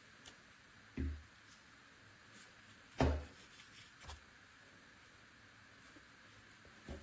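Faint steady hiss with two soft knocks, about a second in and three seconds in, the second louder, then a lighter tap a second later.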